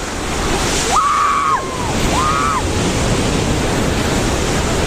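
Stormy sea surf and wind buffeting the microphone in a dense steady rush. Two short high-pitched cries sound over it, about a second and two seconds in.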